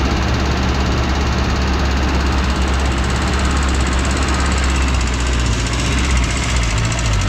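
Vehicle engine running steadily with a constant low hum and no change in pitch.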